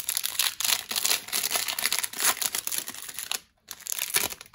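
Foil wrapper of a hockey trading-card pack crinkling as it is handled and opened: a dense, crackly rustle that stops briefly about three and a half seconds in, then picks up again.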